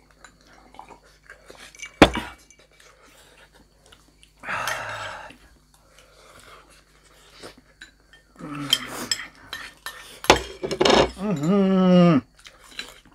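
Cutlery and dishes clinking as people eat, with a sharp knock about two seconds in and another about ten seconds in. A voice makes short wordless sounds, the last one drawn out for about a second near the end.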